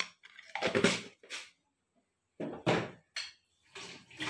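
About half a dozen dull knocks and bumps of household handling, irregularly spaced. The loudest come about a second in and again a little before the middle.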